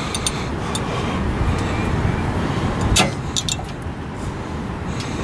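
Scattered metal clicks and clinks as a disc-brake caliper and its bolts are worked into place by hand, the sharpest knock about three seconds in. A steady low rumble runs underneath.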